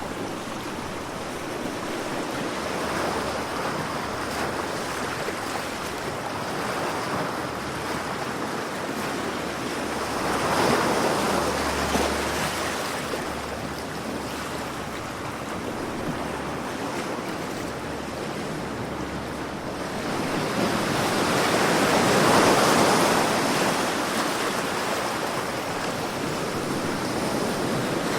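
Sea waves breaking and washing ashore: a continuous rush of surf that swells louder twice, about ten seconds in and again a little past twenty seconds.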